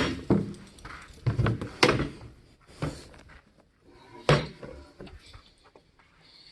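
Chairs being moved by hand with the vacuum switched off: a string of separate knocks and thumps, the loudest at the very start and another about four seconds in, with quieter handling noise between them.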